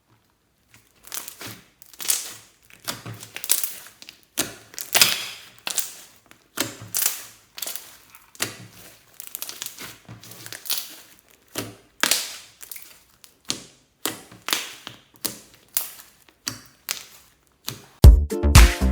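Fluffy slime being squeezed and kneaded by hand: irregular crackling and popping squelches, about one every half second to second. Dance music with a heavy beat starts near the end.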